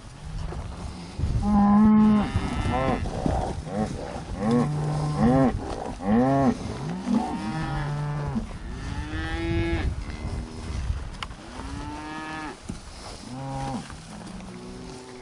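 Hereford cattle mooing over and over: several animals calling at different pitches, their calls overlapping, each call rising and falling in pitch. The loudest call comes about two seconds in.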